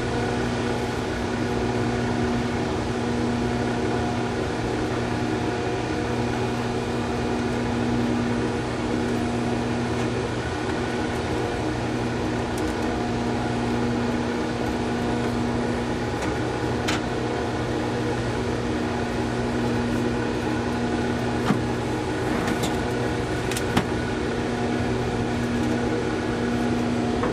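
Steady machinery hum, a low drone with several steady tones above it. A few light clicks in the second half as gear is packed into a plastic hard case.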